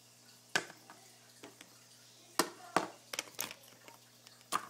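Small hard plastic toys being handled and set down on a hard surface: a scattered series of sharp clicks and knocks, about half a dozen.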